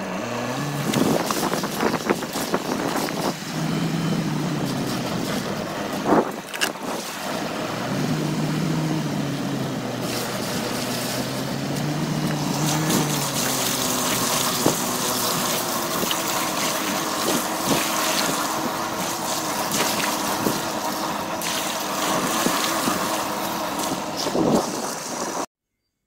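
Car engine rising and falling in revs as the car drives slowly through deep puddles and mud, with tyres splashing and sloshing through the water and occasional knocks from the ruts.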